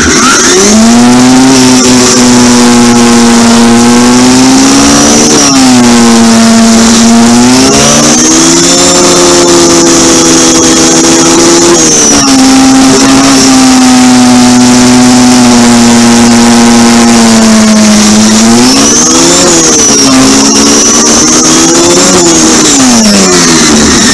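Riding lawn tractor running at speed: a loud motor whine that holds steady, then rises and falls several times as it speeds up and slows.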